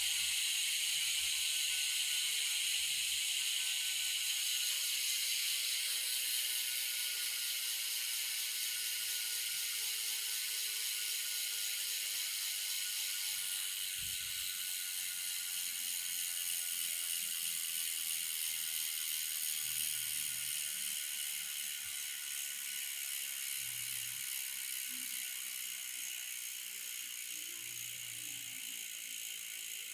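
Xenium AM-82 bicycle hub freewheeling: the pawls and ratchet buzz in a rapid run of clicks that slowly drops in pitch and fades as the spinning wheel loses speed.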